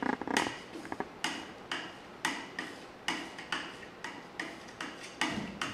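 Ink knife working stiff bone black etching ink, mixed with Easy Wipe, back and forth across an inking slab in a steady rhythm of about two strokes a second. Each stroke is a sharp click with a short scraping tail. The ink is being worked to soften it and make it easier to handle.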